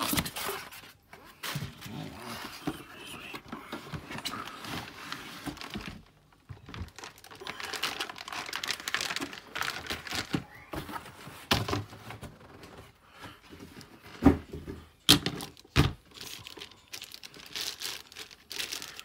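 Plastic bag and cardboard packaging crinkling and rustling as a boxed RC truck is unpacked by hand, with a few sharp knocks about three quarters of the way through.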